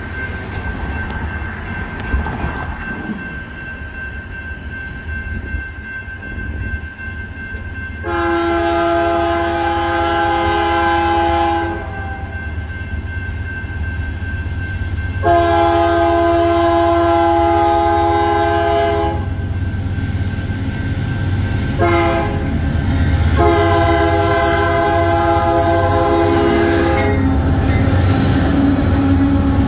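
Diesel freight locomotive's air horn sounding the grade-crossing signal on approach: two long blasts, a short one, then a long one. Near the end the locomotive rumbles past close by.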